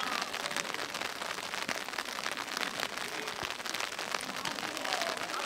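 Steady rain pattering: a dense hiss of many small drop ticks.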